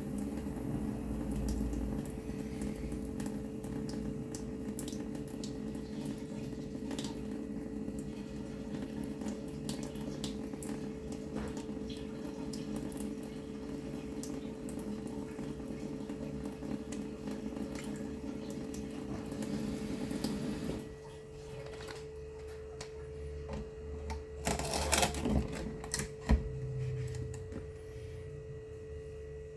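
Water running steadily, which stops suddenly about two-thirds of the way through, followed by a few knocks and clatters. A steady hum runs underneath throughout.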